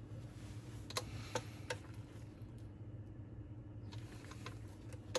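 Light metallic clicks from a rocker arm being worked by hand on a cylinder head while its lift is read on a dial gauge: three clicks between one and two seconds in, and a few fainter ticks later, over a steady low hum.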